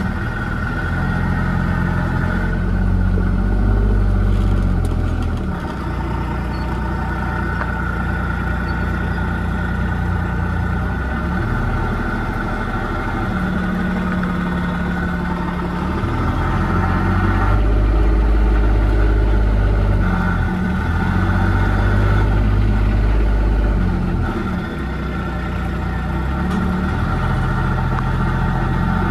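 A motor vehicle's engine running, its pitch shifting up and down several times as it speeds up and slows.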